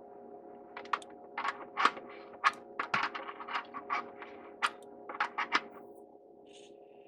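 Metal wrenches clicking and scraping on threaded water-line fittings as a supply connection is worked loose: a quick run of sharp clicks and short scrapes for about five seconds, then stopping. A steady hum runs underneath.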